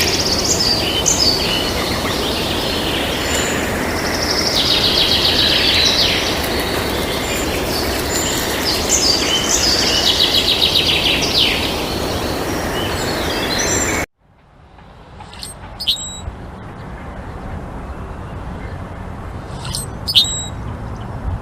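Small birds chirping and trilling in quick runs of high notes over a loud, steady background noise. About two-thirds of the way through, the sound cuts abruptly to a much quieter scene with a few short, sharp bird calls.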